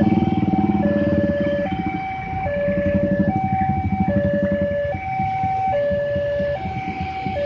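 Railway level-crossing warning alarm sounding an electronic two-tone chime, a lower and a higher note taking turns about every 0.8 seconds. It signals an approaching train as the barrier closes. Car and motorbike engines run underneath, loudest in the first couple of seconds.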